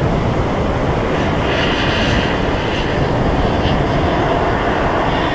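Boeing 747-400 freighter's four jet engines running as it rolls out on the runway just after touchdown: a steady jet rumble, with a high whine standing out for a second or two about halfway through.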